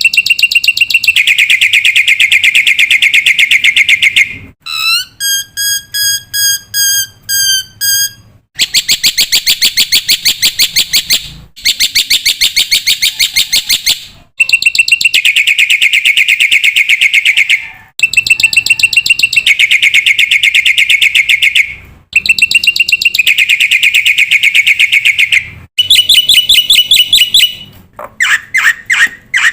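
Black-winged myna (jalak putih) calling loudly in long runs of very fast repeated chirps, each run lasting a few seconds with short breaks between them. About five seconds in, the chirps give way to a string of about eight separate rising whistles.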